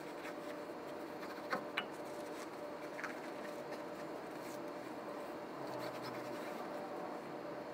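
Hands rubbing and smoothing Simonis worsted-wool billiard cloth over a pool table's slate bed and pressing it down onto contact glue along the edge: a soft scratchy brushing. There are two sharp clicks about a second and a half in, and a lighter one near three seconds.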